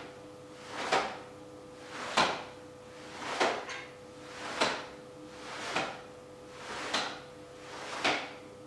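Short swishes, one with each alternating tonfa strike (tsuki), evenly spaced about every 1.2 seconds, seven in all.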